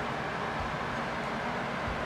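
Steady rushing noise with a low rumble underneath, even throughout, with no distinct events.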